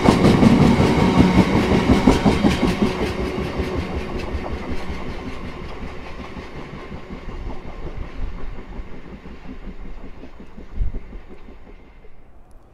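A freight train running past, its wagon wheels clicking rapidly over the rail joints, the sound fading steadily as the train moves away.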